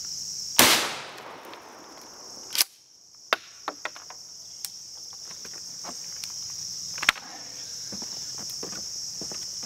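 A Winchester PDX1 12-gauge shotgun load fired about half a second in: one loud shot with a long fading echo. Further sharp cracks follow, the strongest about two seconds later and another near seven seconds, over a steady high buzz of insects.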